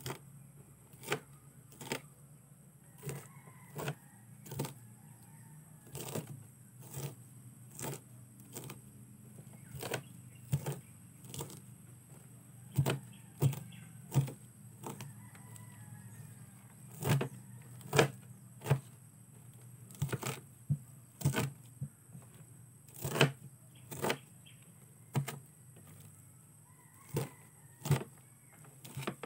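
Kitchen knife chopping banana blossom (banana heart) on a tray: a steady run of sharp chops, about one or two a second.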